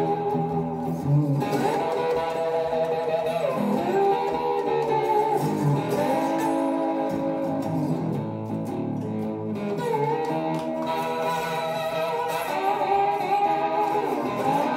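Chinese-made three-pickup 'Chibson' Firebird copy electric guitar played slide-style in open E tuning, its notes gliding up and down in pitch between picked chords.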